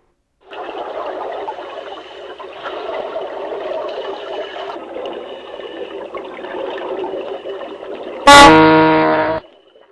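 Music, with a plucked guitar, then near the end a loud cartoon car-horn honk sound effect lasting about a second, which cuts off sharply.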